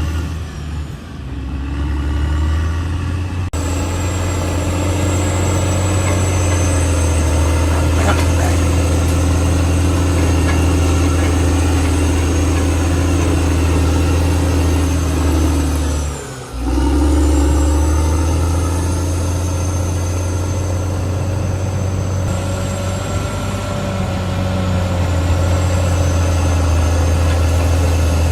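Caterpillar D6R XL bulldozer's diesel engine running steadily. About halfway through, the engine briefly dips in pitch and loudness, then picks back up.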